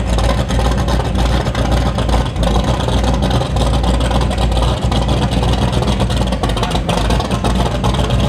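Powerboat V8 engines idling with a loud, deep, steady rumble, typical of a big offshore boat like the Apache 41 lying at the dock.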